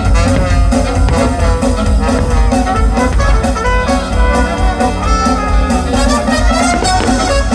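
Loud orchestral show music with brass over a driving drum beat, the soundtrack of a fireworks show.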